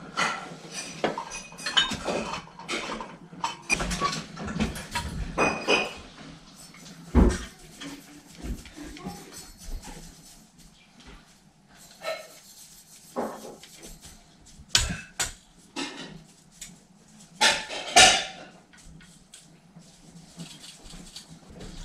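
Glass lamp shades and brass fittings of a ceiling pendant lamp clinking and knocking as they are handled. The clinks come thick and fast at first, then sparser, with a few louder knocks.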